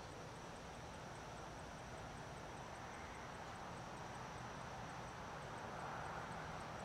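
Summer-night outdoor ambience: a steady high insect drone with a soft ticking about three times a second, and a distant rushing rumble that slowly grows louder over the second half.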